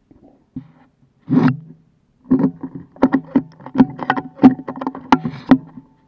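A rapid, irregular series of sharp clicks and knocks, a dozen or so in about three seconds, over a low steady hum, after one short rustling burst.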